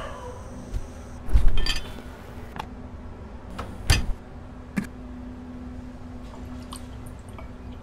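Kitchen handling noises: a few separate clinks and knocks as a bottle is handled and the refrigerator door is worked, the loudest knocks about one and a half and four seconds in, over a faint low steady hum.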